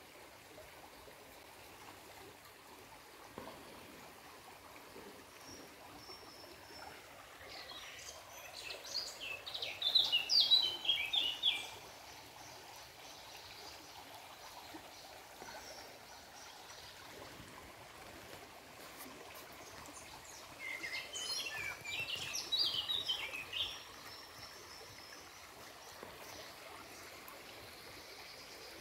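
A shallow stream trickling faintly and steadily over stones, with a songbird singing two bursts of quick, high chirping notes, about eight seconds in and again about twenty-one seconds in. The birdsong is the loudest sound.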